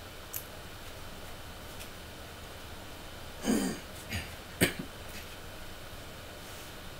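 A man clears his throat once about three and a half seconds in, followed by a sharp click, over a steady background hiss.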